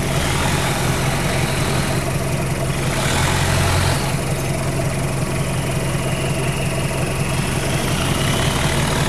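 Off-road vehicle engine running steadily near idle, rising a little for about a second around three seconds in.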